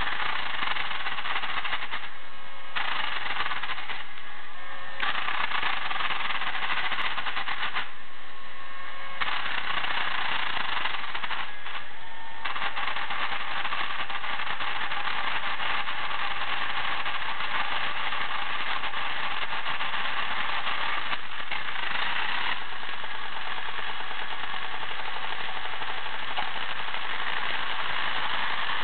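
Battery-operated toy Aston Martin car's electric motor and gear mechanism running with a continuous rattling clatter. It drops back briefly several times in the first dozen seconds, then runs steadily.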